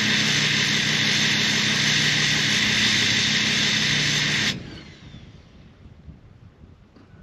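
A loud, steady machine-like drone: a constant low hum under a strong hiss. It cuts off suddenly about four and a half seconds in, leaving only faint outdoor background.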